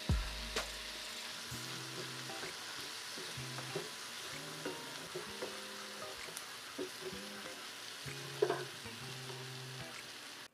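Luncheon meat sisig frying and sizzling in a pan, stirred with a utensil that knocks and scrapes against the pan now and then, with a sharper knock near the end. Soft background music plays underneath.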